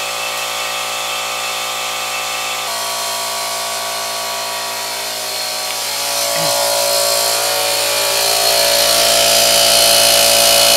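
Small 5-gallon portable air compressor running steadily, its motor and pump charging a larger air tank toward 60 psi for blowing out a sprinkler system. The running grows louder about two-thirds of the way through.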